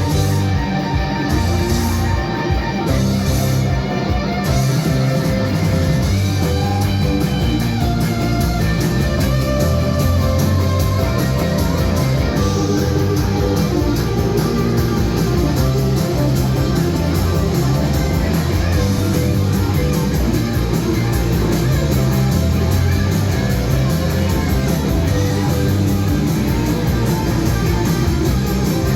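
Rock music with guitar, playing steadily and densely with a strong bass.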